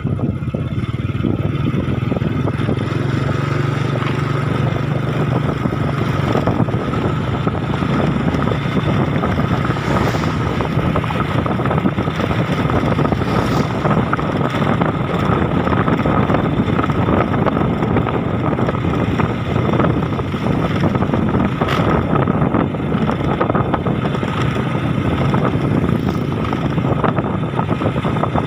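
A motor vehicle's engine running steadily while travelling, with wind noise on the microphone.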